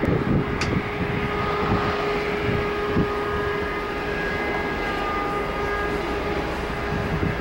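Boeing 787 Dreamliner's turbofan engines on landing approach: a steady whine of several held tones over a rushing jet noise.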